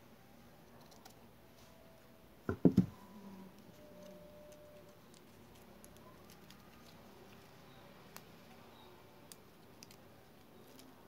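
Paper strips handled and woven by hand, with faint scattered ticks and rustles. About two and a half seconds in come two or three close dull knocks, much louder than the rest.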